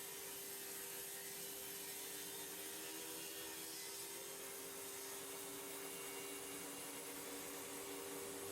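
Table saw running with a steady whir and hiss, with no distinct cut or knock.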